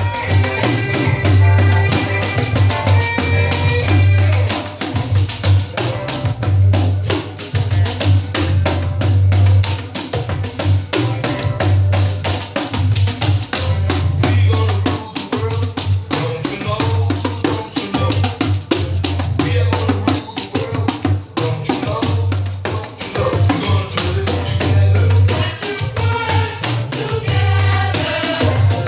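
A 12-inch nylon-head pandeiro played in a steady, fast rhythm, its jingles rattling on every stroke, over recorded music.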